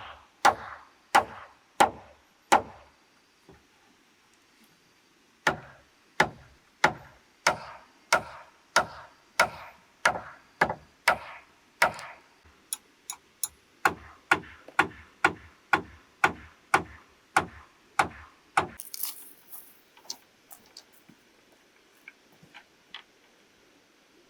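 Evenly spaced, sharp strikes of a hand tool on bamboo, about two a second. After the first four they pause for about three seconds, then a long steady run follows. The strikes stop near the end, and only a few faint taps follow.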